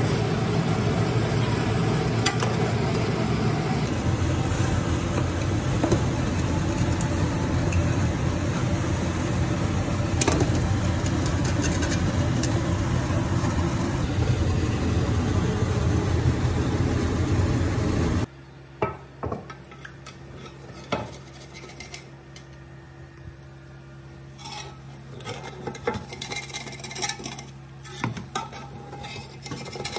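A loud, steady rushing noise as a pot of pilao rice cooks over the heat. About two-thirds of the way through it drops away, leaving a metal fork scraping and clinking against the metal pot as the cooked rice is turned and fluffed.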